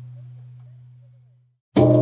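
Temple bell: the low hum of one stroke fades away to nothing, and near the end the bell is struck again, ringing out with several tones over its low hum.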